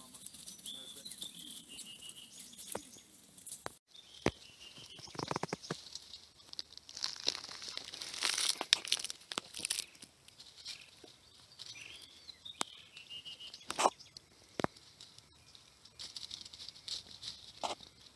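Nine-banded armadillo rooting and scratching through dry leaf litter: irregular bursts of crackling and rustling, densest in the middle, with a few sharp cracks. A bird gives a short descending call twice in the background.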